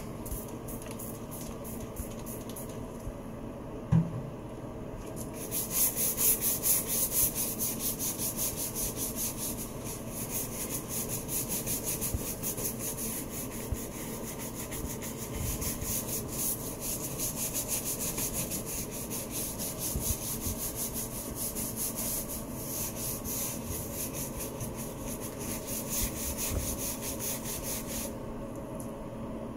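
Hand scrub brush scrubbing the grout lines of a ceramic tile wall in quick back-and-forth strokes. There is a single knock about four seconds in. The scrubbing gets louder from about five seconds in and stops shortly before the end.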